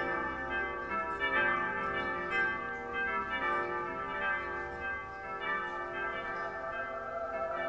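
Background music made of ringing bell tones, with a new stroke about once a second.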